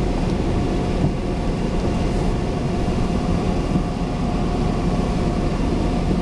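Jeep driving off-road, heard from inside the cabin: a steady rumble of engine and tyres on dirt, with a thin steady whine.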